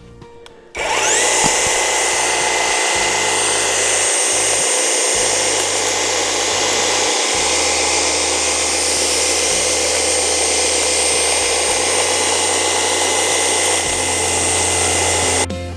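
Parkside 40V cordless hedge trimmer switched on about a second in, its motor spinning up quickly to a steady high whine over the clatter of the reciprocating blades. It runs at a constant speed for about fifteen seconds, then stops suddenly near the end.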